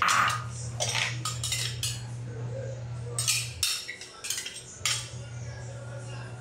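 A spatula clinking, tapping and scraping against a frying pan in quick irregular strokes as chicken is stirred in its sauce, over a steady low hum that drops out for about a second midway.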